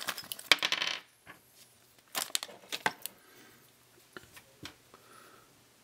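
Small metallic clicks and clinks of HO-scale metal wheelsets and plastic trucks being picked up and handled: a quick flurry at first, then a few separate clicks.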